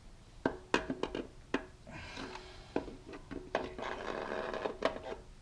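Overdrive piston being worked down into the E4OD transmission case: metal parts clicking and knocking about seven times, some with a brief ring, with scraping between the knocks as the tight-fitting piston is pushed into place.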